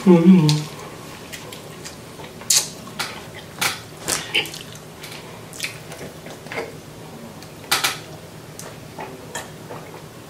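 Scattered sharp clicks and plastic crackles from a plastic drink bottle being handled and its screw cap twisted open, before a drink is taken from it.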